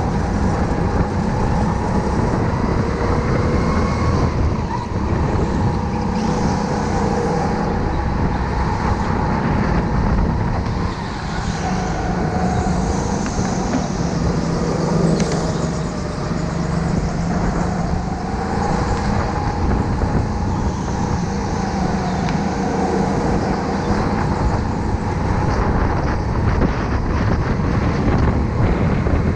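Go-kart motor running flat out on the kart being driven, its pitch rising and falling again and again as it speeds up and slows.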